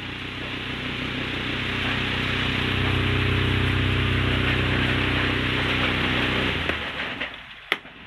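A 12-inch electric table fan running: a steady motor hum with a rush of moving air, growing louder as the fan comes close and falling away near the end. A single sharp click comes just before the end.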